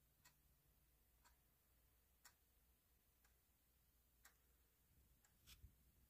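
Near silence: room tone with faint, evenly spaced ticks about once a second and a couple of slightly louder clicks near the end.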